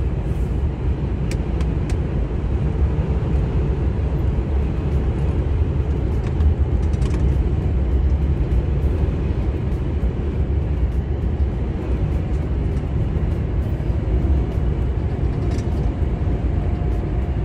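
Steady low rumble of a lorry's diesel engine and road noise heard inside the cab while cruising on a motorway.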